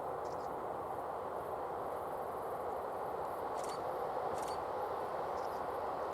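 Steady rushing outdoor noise, with a few brief high-pitched chirps over it.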